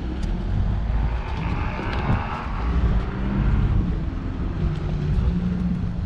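Wind buffeting the microphone as a steady low rumble, with a hissing swell about two seconds in.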